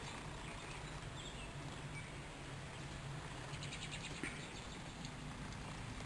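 Outdoor ambience in light rain: a steady hiss with faint, scattered bird chirps and a short rapid trill about two-thirds through. A single soft knock sounds about four seconds in.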